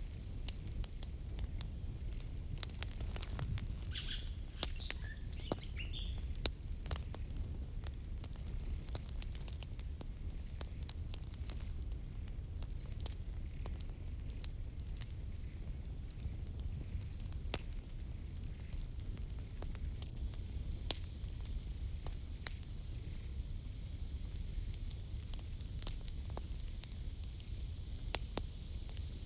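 Outdoor wood cooking fire crackling with scattered irregular pops over a steady low rumble. A steady high thin tone runs underneath, and a few short high chirps come about four to six seconds in.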